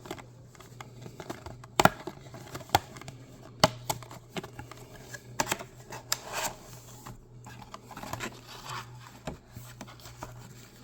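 Cardboard box and packaging of Pokémon card packs being handled and opened: scattered sharp clicks and taps with short rustles and scrapes, over a steady low hum.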